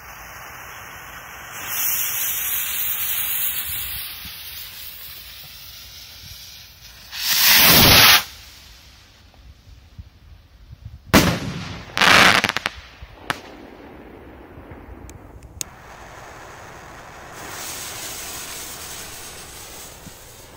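A lit skyrocket fizzes, then launches with a loud hiss that fades over a couple of seconds as it climbs. About five seconds later a loud bang sounds as it bursts in the air, followed by sharp cracks a few seconds on. A softer hiss comes near the end.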